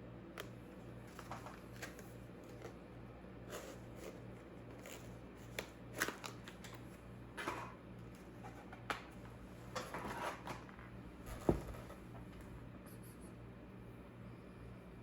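Scattered light clicks, taps and rustles of small objects being handled, irregular and a few seconds apart, with a sharper knock about eleven and a half seconds in, over a steady low hum.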